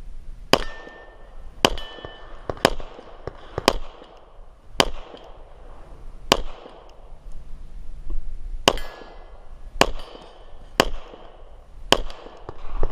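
About ten 9mm pistol shots from a Glock 34 firing 125-grain coated lead bullets, roughly a second apart with a longer pause in the middle. Some shots are followed by a brief metallic ring.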